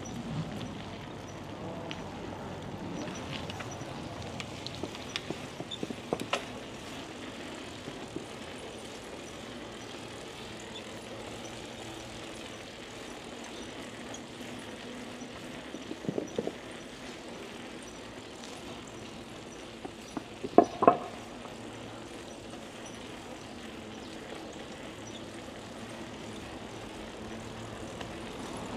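Riding noise of a bicycle heard from a chest-mounted camera: a steady rush of wind and tyre noise, with scattered light rattles and clicks. A few loud, sharp clacks come about three quarters of the way through.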